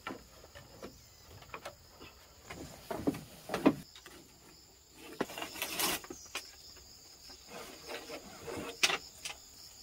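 Scattered knocks, scuffs and a longer rustle from a wild boar being pushed and handled into a pen, over a steady high insect drone.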